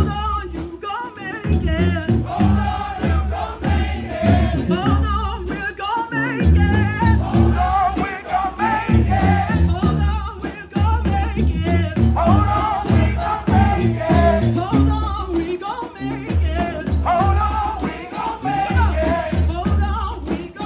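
Brass band playing a gospel tune over a steady drum beat, with voices singing along.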